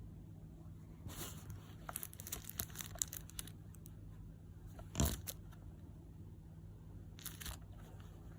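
Crinkling and rustling of an instruction manual and packaging being handled: bursts of crackles for a couple of seconds, one louder crackle about five seconds in, and a short burst near the end.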